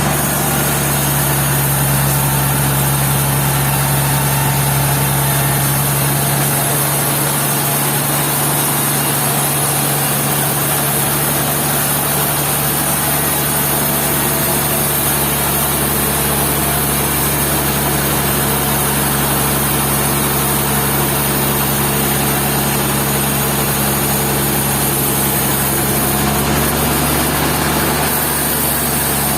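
Sawmill machinery running steadily, a constant low engine hum with a hiss over it.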